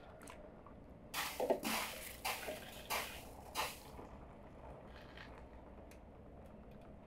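Hot pomegranate juice being ladled out of a large aluminium pot and poured through a funnel into a glass bottle: about five short splashes and sloshes between one and four seconds in, then quieter.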